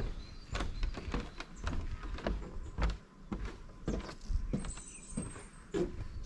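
Footsteps on a mountain hiking trail, about two steps a second, over a low rumble on the microphone.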